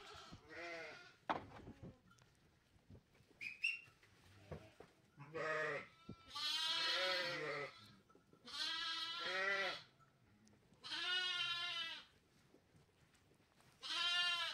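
Sheep bleating, about six long quavering bleats one after another, louder from the middle onward. A single sharp knock about a second in.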